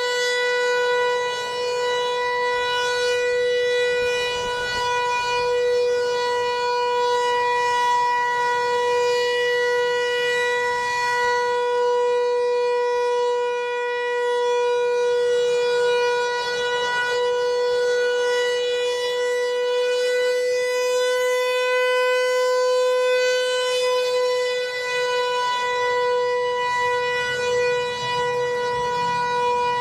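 Federal Signal Equinox outdoor warning siren sounding a steady alert tone for its monthly test, holding one pitch with small swells and dips in loudness.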